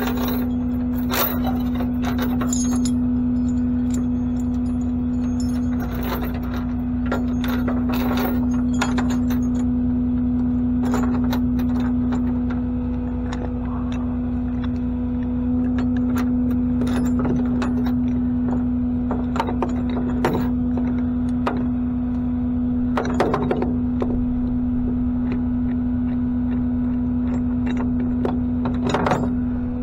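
A tow truck's engine running steadily with a constant hum, under repeated short metallic clinks and rattles.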